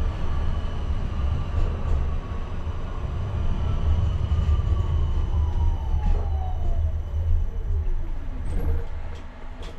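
Škoda Anitra 03T6 tram running with a steady low rumble, its electric traction motor whine falling steadily in pitch over about eight seconds as the tram slows.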